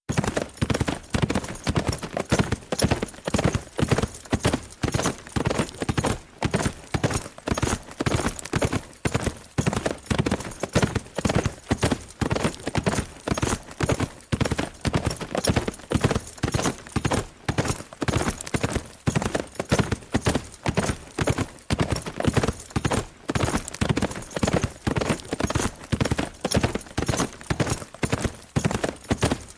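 A horse galloping fast at a steady pace, its hoofbeats falling in an even rhythm of about two to three strides a second.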